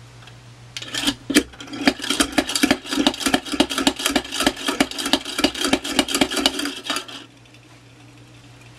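Ohio Art tin spinning top being pumped: its plunger is pushed down again and again, making a fast, even clatter of several strokes a second. The clatter stops abruptly about seven seconds in, once the top has been spun up.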